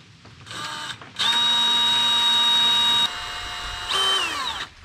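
Cordless drill with a small bit drilling the wire holes into a carved wooden fishing lure. After a short blip, the motor whines steadily for about two seconds. About three seconds in, the sound turns softer and lower. Near the end a brief rev winds down in pitch as the drill stops.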